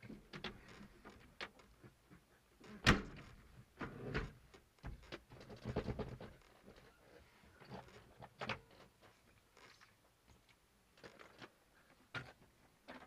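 Items being handled in a small aircraft's cockpit: scattered clicks, knocks and rustling, with one sharp knock about three seconds in.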